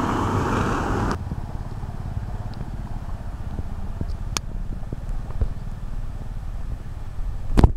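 Car tyres splashing through floodwater, a dense rush of spray that cuts off suddenly about a second in. Then a low rumble of wind on the microphone with scattered small clicks, and a sharp knock near the end.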